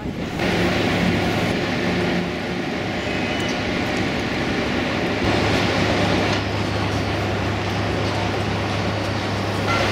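Steady low engine hum over dense city traffic noise.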